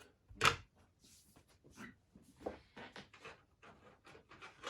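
A sharp knock about half a second in, then a run of lighter clicks and rattles: 3D-printed plastic locksport pieces such as pinning trays being handled and put down.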